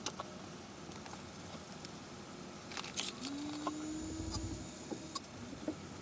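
Workbench handling noises: scattered clicks and taps as wires are handled and the plastic fan housing is shifted. About three seconds in there is a brief low tone that rises slightly for about a second and a half, with a low rumble under its end.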